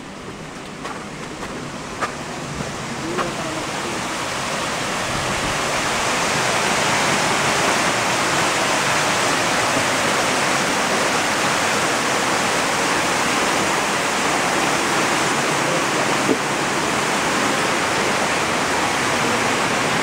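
Water spilling in a sheet over the rim of a koi tank into the trough below, a steady rushing splash that grows louder over the first several seconds and then holds level. A few light knocks in the first three seconds.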